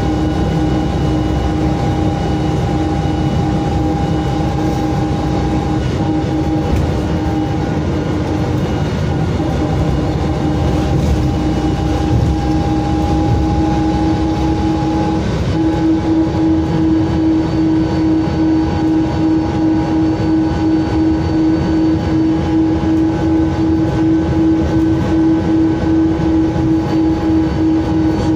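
VDL DB250 double-decker bus's diesel engine and driveline running, heard from inside the saloon: a loud, thrashy mechanical drone with a steady whine over it. About halfway through, the whine steps slightly higher and a regular throb sets in.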